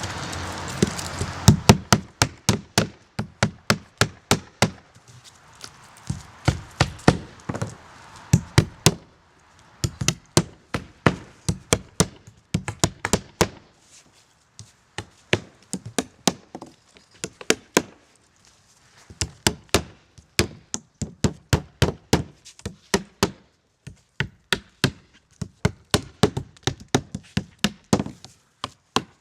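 Roofing nails being hammered through base felt paper into a wooden roof deck: quick runs of sharp hammer blows, several a second, with short pauses between nails. A rustling hiss comes just before the hammering starts.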